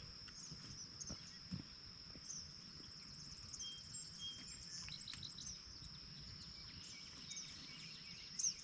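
A faint, steady, high-pitched insect drone with scattered short bird chirps over it.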